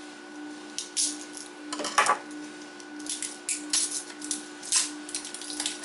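Irregular plastic clicks and rattles of a candy-sprinkle container being worked open by hand, with the sprinkles shaking inside, over a steady faint hum.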